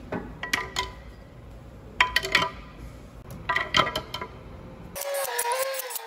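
Metal tools and engine parts clinking against each other in three short bursts, each with a brief metallic ring, as the engine is being reassembled. About five seconds in a power drill starts whirring, its pitch wavering.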